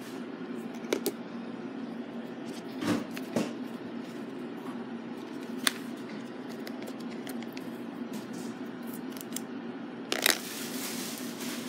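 Cardboard and plastic packaging of an iPhone box being handled: a few scattered taps and rustles, the loudest near the end, over a steady low hum.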